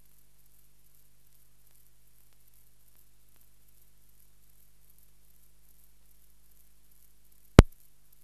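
Faint steady hiss and low hum of an old optical film soundtrack, with one sharp click near the end.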